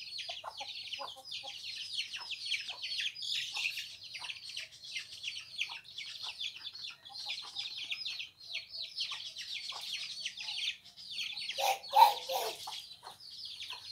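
A flock of chickens peeping continuously, in a dense run of short, high chirps, with one louder, lower call about twelve seconds in.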